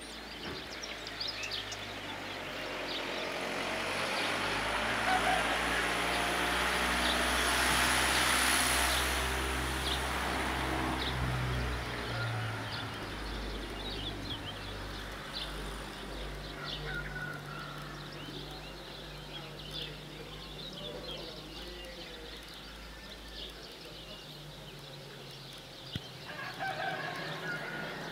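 A motor vehicle passing, its engine and tyre noise swelling to a peak about eight seconds in and fading away by about twelve seconds. Small birds chirp throughout.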